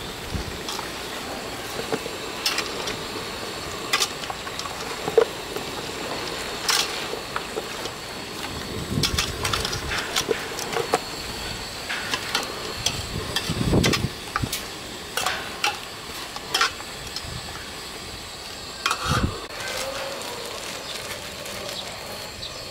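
Metal ladle stirring a thick chicken and vegetable curry in a stainless steel pot: irregular clinks, scrapes and knocks of the ladle against the pot, over a steady hiss.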